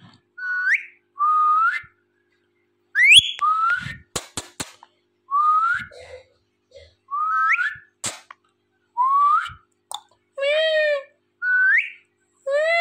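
Indian ringneck parrot giving a series of short, rising whistles, about one every one to two seconds. Near the end come two arched, meow-like calls, and there are a few sharp clicks about four seconds in.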